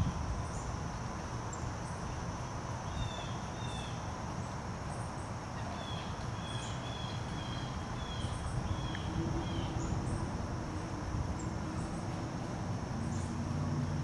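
Small songbirds giving short whistled chirps in quick series, over a steady high-pitched hum and a low outdoor rumble.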